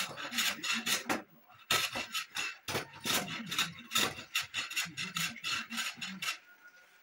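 Metal hand plane shaving wood in quick short strokes, each a rasping scrape of the blade along the board, with a brief pause about a second and a half in and stopping near the end.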